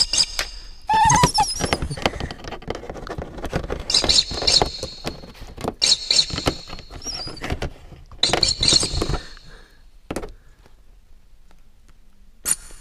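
A small terrier chewing and gnawing at a keyboard up close: teeth clicking and scraping on plastic, with short bursts of high squeaks every couple of seconds. It goes quieter near the end, then another burst.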